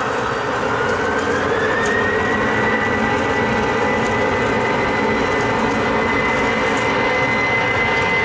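Airbus A320-200's twin CFM56 jet engines at takeoff power as the airliner accelerates down a wet runway: a steady loud rush with a whine that rises over the first couple of seconds and then holds steady.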